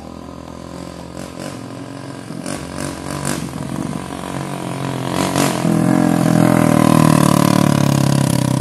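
Motorcycle engine drawing near along a dirt road, growing steadily louder to a peak about seven seconds in as it passes, then starting to fade.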